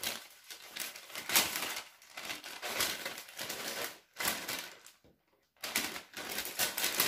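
Parchment paper rustling and crinkling as hands spread and fold it over the fish, in uneven bursts with a short pause about five seconds in.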